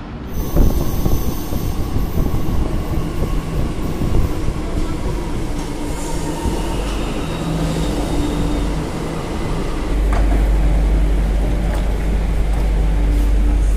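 Delhi Metro train running through an underground station: a steady rumble of wheels and traction motors, with a faint high wheel squeal. About ten seconds in, a deeper, louder rumble sets in.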